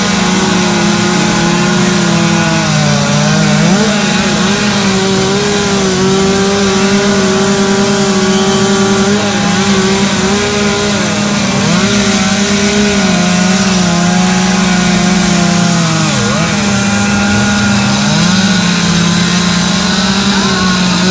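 Several chainsaws running at once at high revs, each at a slightly different pitch, with a few brief dips in engine speed as the saws cut into the wood.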